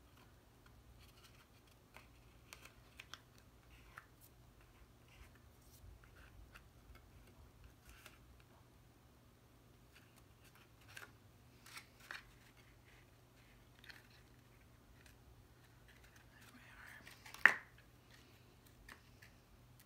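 Cardstock pieces being handled and pressed together by hand: scattered light rustles and small taps, with one sharper tap about three-quarters of the way through.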